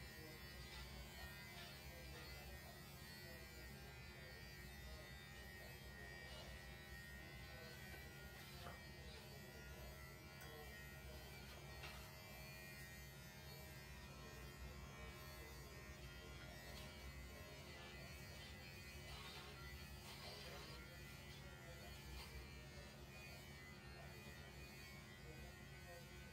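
Electric pet hair clippers buzzing faintly and steadily as they trim a cat's fur.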